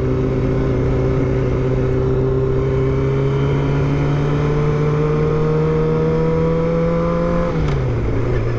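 Motorcycle engine pulling in gear, its revs climbing slowly and steadily, then dropping sharply about seven and a half seconds in as the rider shifts up, and starting to climb again.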